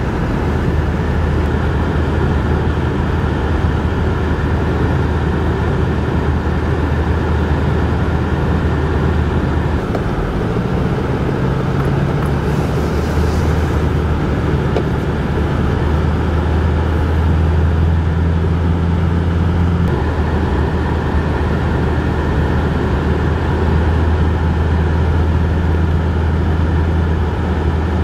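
Pickup truck driving across snow-covered lake ice, heard from inside the cab: a steady low engine drone with road noise. The engine note shifts about ten seconds in and again about twenty seconds in.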